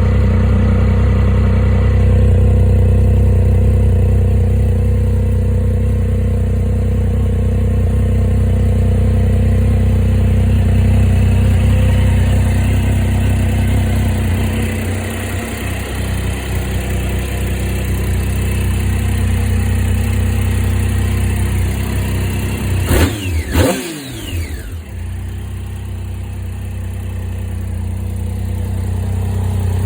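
Triumph Street Triple 675's inline three-cylinder engine idling steadily through its stock exhaust, with two quick throttle blips about three quarters of the way in, the pitch sweeping up and falling back to idle.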